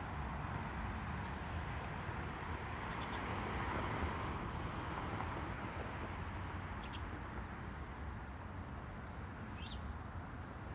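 Steady street traffic noise with a vehicle passing about four seconds in, and a few short, faint bird chirps.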